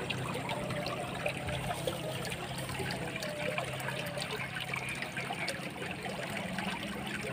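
Water in a small, swift-flowing ditch running and trickling steadily.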